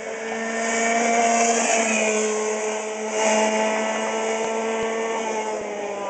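Yamaha KT100 100cc two-stroke cadet kart engine running at high revs on track, a buzzing whine of nearly steady pitch that swells louder about a second in and again halfway through, then eases as the kart pulls away.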